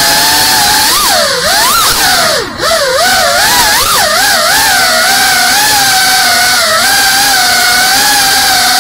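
GEPRC Cinelog 35 FPV cinewhoop's brushless motors and propellers whining as it flies. The pitch swoops up and down with throttle changes over the first few seconds and drops out briefly about two and a half seconds in, then settles into a steady whine.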